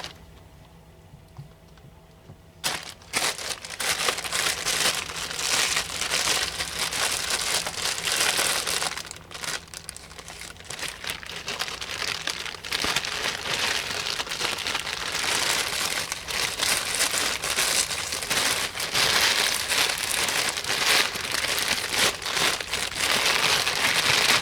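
Continuous crinkling and rustling from close handling, starting about three seconds in after a short quiet stretch.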